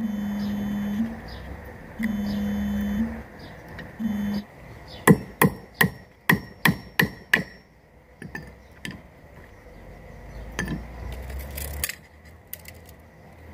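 Claw hammer driving a nail into a wooden strip: a quick run of about eight sharp blows, roughly three a second, about five seconds in, followed by a few lighter taps.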